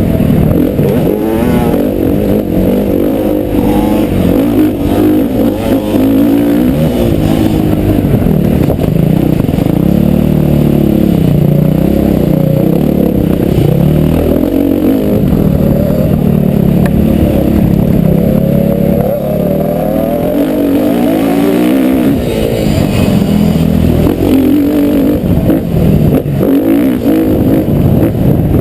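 Motocross bike engine revving hard and easing off again and again as it is ridden round a dirt track, its pitch rising and falling continuously.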